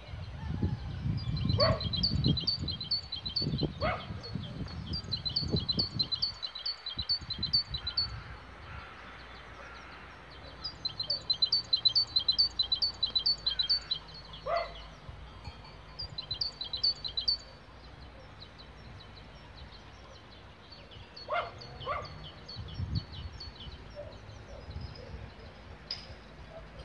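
Great tit singing: bouts of fast, high repeated notes, three runs with pauses between, with a few short, lower calls from another animal in between.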